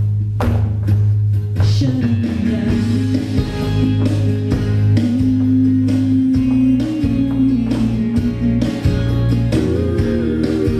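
Recorded country song with guitar and bass playing steadily.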